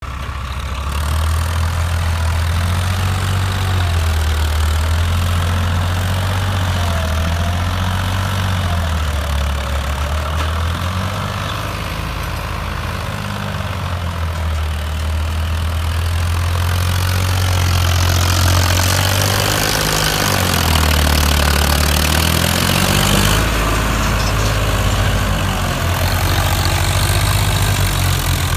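Farmtrac 60 T20 tractor's diesel engine running steadily under load as it pulls a soil scraper through loose earth. A deep engine hum rises and falls a little, and a rushing noise joins it about two-thirds of the way through.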